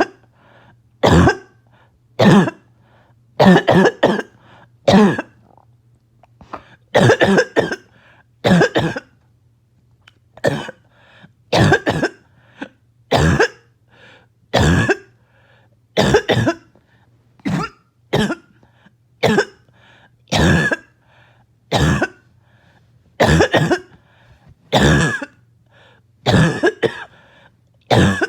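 A person's harsh, barking, choking cough in a long fit, one cough about every second or so, some coming in quick pairs. The uploader says the fit was set off by an itchy nose and throat.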